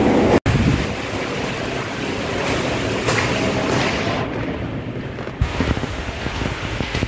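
Steady noisy rush of wind buffeting the microphone, with a brief dropout about half a second in and a single thump about five seconds in.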